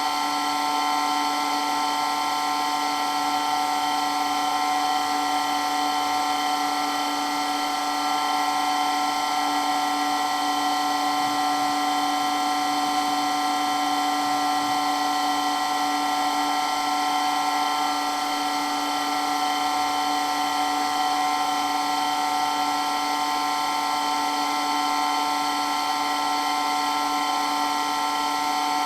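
Water pump running steadily, a constant whine made of several held tones that never changes in pitch or loudness.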